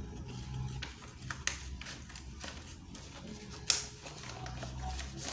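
Scissors snipping through a paper pattern piece: a few scattered crisp cuts with paper rustling, the sharpest snip nearly four seconds in.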